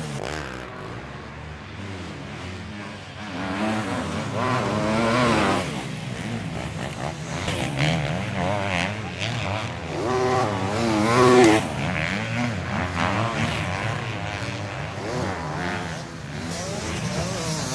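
Several 250cc motocross bikes racing past one after another, their engines rising and falling in pitch as riders throttle on and off through the corners. The loudest pass comes about ten to eleven seconds in.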